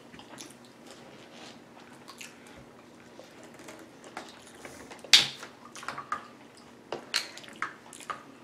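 Quiet chewing with small mouth clicks. About five seconds in comes a sharp plastic crackle, followed by a few smaller crinkles, as a plastic water bottle is gripped and its cap twisted open.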